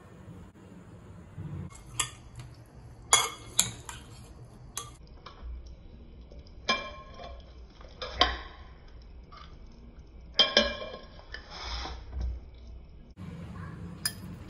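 A spoon stirring and tossing chickpea salad in a glass bowl: irregular clinks and short scrapes against the glass, starting about two seconds in.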